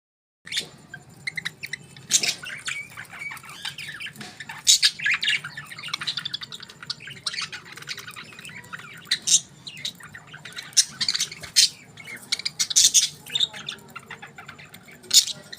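Budgerigars chattering: a dense run of fast warbling chirps broken by sharp, loud squawks, starting about half a second in.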